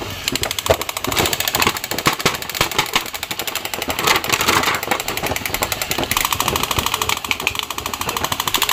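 Dense, rapid crackling and rattling of plastic as a toy action figure is pulled from its clear plastic bag and handled.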